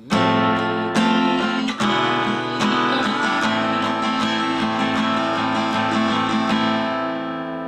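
Acoustic guitar strummed in a steady rhythm through the chords F, E7 and A minor. The last A minor chord, struck about six and a half seconds in, is left ringing and slowly fades.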